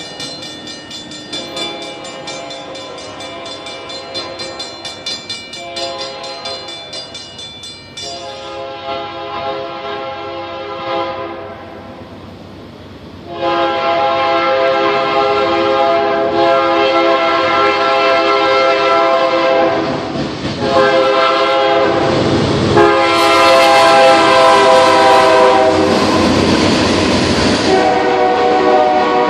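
Air horn of the lead GE C44-9W diesel locomotive sounding several blasts for a grade crossing, faint at first and much louder from about halfway through as the train closes in. Near the end the locomotives pass close by with engine and wheel noise under the horn.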